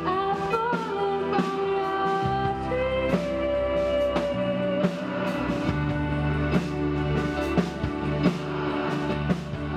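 Band music: a song with guitar, drums and singing over a steady beat.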